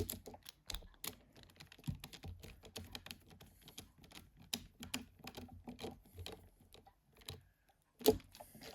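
Rapid, irregular small clicks and taps of a precision screwdriver and plastic phone parts being handled while a Nokia N73's screws are fitted, with one louder click near the end.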